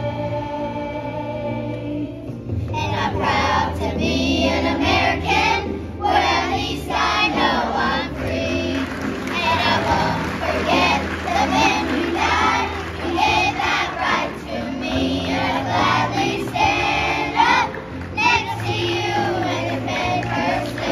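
Children's choir singing over an instrumental accompaniment; the accompaniment plays alone for about the first two seconds before the voices come in.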